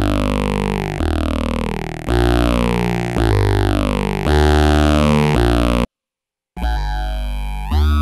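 Eurorack modular synthesizer playing a repeated low bass note about once a second, each note's tone sweeping downward as it decays, run through a Boss PH-2 phaser converted to a Eurorack module. About six seconds in the sound cuts out for roughly half a second, then returns as a sustained tone with phaser notches sweeping up in pitch.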